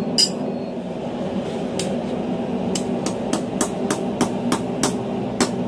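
Hand hammer striking a glowing steel bar on the anvil, bending its end back to form a bottle opener's hooked lip. A single ringing blow comes right at the start and another about two seconds in, then a steady run of about three blows a second follows. A steady low hum runs underneath.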